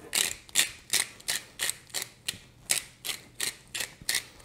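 Pepper mill being twisted to grind pepper: a short, crunchy ratcheting rasp with each turn, about three a second.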